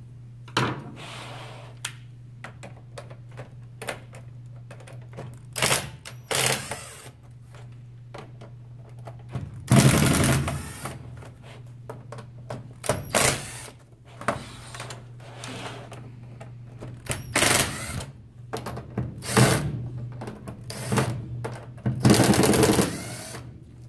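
Ryobi cordless impact driver backing screws out of a plastic keyboard case in about ten short bursts of rapid hammering. The loudest burst is about ten seconds in and a longer one comes near the end, with small clicks of handling between them over a steady low hum.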